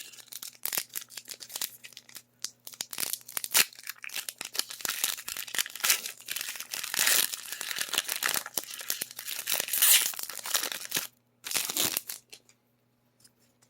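Foil Pokémon TCG booster pack wrapper being torn open and crinkled in the hands, irregular tearing and crackling for about eleven seconds, then one short crinkle before it goes quiet.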